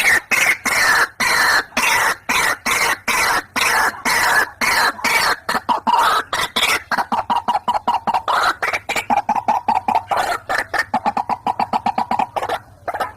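White-breasted waterhen (ruak-ruak) calling: a fast run of harsh repeated notes, about four to five a second, falling in pitch over the first half and then holding steady, with a brief break near the end. It is a recorded call used as a lure for waterhens.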